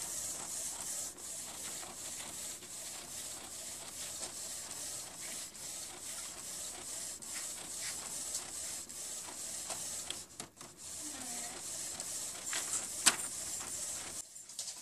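Desktop printer printing a page: a steady mechanical whir with a thin high whine and many small clicks as the sheet feeds out. There is one sharp click about thirteen seconds in, and the noise drops off briefly near the end.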